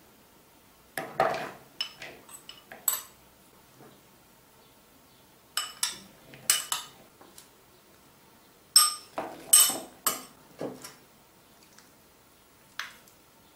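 Metal spoon clinking and scraping against ceramic bowls as salad ingredients are scooped out and tipped into the mixing bowl: several clusters of sharp clinks with a short ring, the loudest about nine to ten seconds in.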